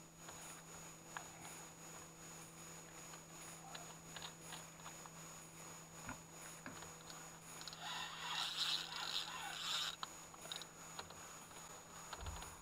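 Spinning reel working under the load of a large hooked salmon, with a scratchy stretch about eight seconds in lasting some two seconds, as line is given or wound, over faint handling noise.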